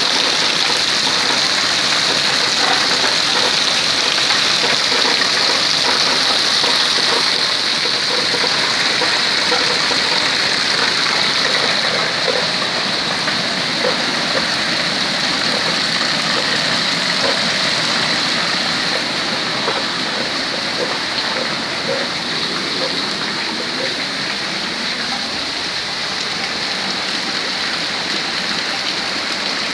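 Heavy rain falling steadily, a dense even hiss, with runoff water streaming over muddy ground; it eases slightly in the last third.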